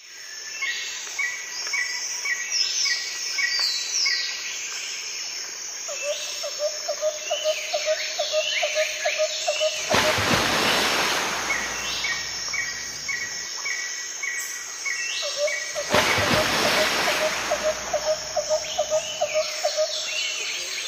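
Outdoor ambience of several birds calling: repeated rapid chirp series and sweeping whistled calls, with a pulsed call in two runs. Twice, about ten and sixteen seconds in, a rush of noise swells over them for a couple of seconds.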